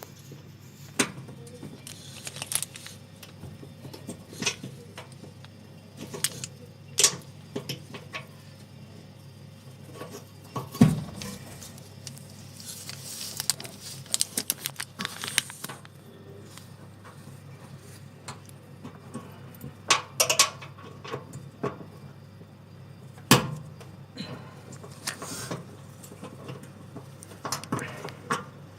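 Scattered metallic clicks, clinks and knocks of hand-working a washing machine shock absorber and its screw, with a couple of louder knocks about eleven and twenty-three seconds in.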